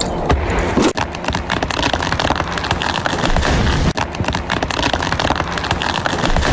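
Strong wind rushing, with a dense, steady crackle of pattering grit or debris striking a miniature mud house.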